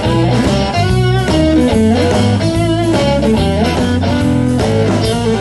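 Blues band playing an instrumental break: an electric guitar solo with bent notes over the band's steady low end.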